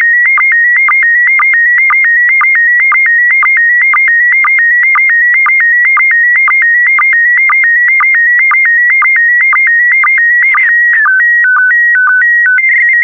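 PD120 slow-scan television (SSTV) audio signal: the last scan lines of an image, as high warbling tones near 2 kHz broken by a short low sync beep about twice a second. About ten seconds in, the line rhythm gives way to a brief noisy burst and a run of tones stepping between two pitches as the transmission closes.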